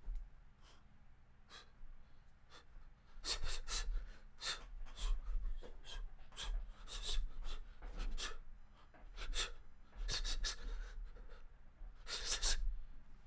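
A man breathing out hard and gasping in short breathy bursts, often two or three together, with low thumps under them.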